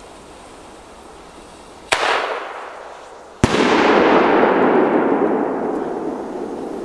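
Cosmos Fireworks 'Brocade Crown' aerial firework going off: a sharp bang, then a louder bang about a second and a half later, each followed by a crackling hiss of falling sparks that slowly fades.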